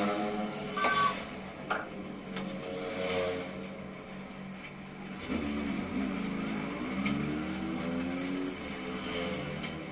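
Motor vehicle engine running, its pitch rising and falling as it revs, over a steady low hum. About a second in there is a brief, loud, high-pitched squeal.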